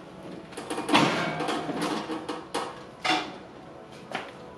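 Metal parts of a coffee roaster setup being handled: a long scraping rattle about a second in, then a few separate sharp knocks.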